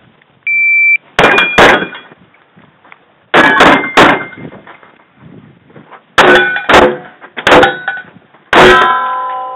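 Shot-timer start beep, then a Kimber 1911 pistol firing about ten shots in quick pairs. Steel targets ring after hits, with a long ring from a struck steel plate near the end.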